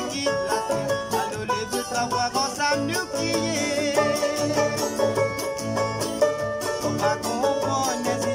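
Acoustic guitar playing an instrumental passage: quick picked notes over chords in a steady, lively rhythm.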